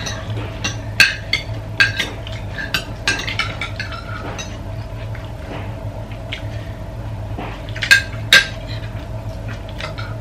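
Spoons and forks clinking and scraping on plates and bowls as people eat, in irregular sharp clinks, the loudest pair about eight seconds in. A steady low hum runs underneath.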